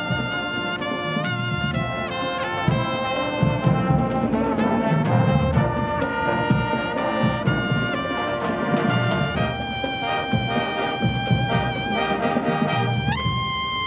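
Marching band brass section, trumpets and larger horns, playing a tune in full chords. Near the end the notes slide up into a long held chord.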